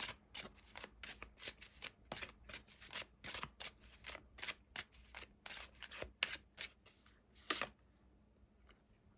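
Tarot deck being shuffled by hand, the cards slapping and flicking against each other in quick, irregular strokes, a few each second. The shuffling stops about a second and a half before the end.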